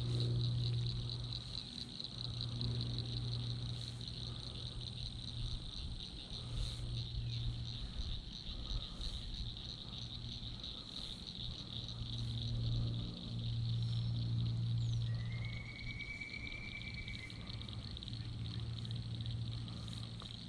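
Steady high-pitched chorus of calling wildlife over water, with a low hum that comes and goes several times and a short trill about fifteen seconds in.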